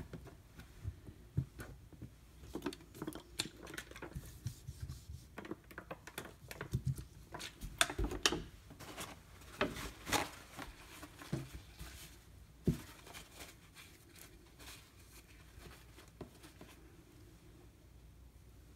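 Irregular light clicks and knocks of sharpening stones and a knife being handled while changing from a 1000-grit to a 4000-grit Shapton Glass whetstone, thinning out near the end.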